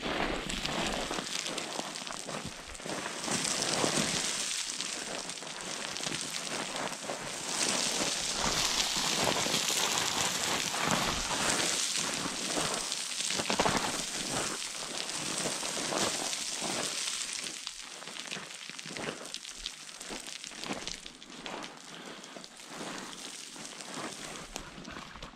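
Boots crunching and scraping on loose shale scree in quick, continuous footsteps, with small stones rattling underfoot. Louder through the middle, easing off in the last several seconds.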